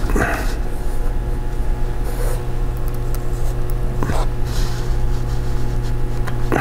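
A few brief scrapes and clicks as a 2.5-inch SSD is fitted and screwed into a laptop's metal drive caddy with a small screwdriver, about a quarter second, two seconds and four seconds in, over a steady low hum.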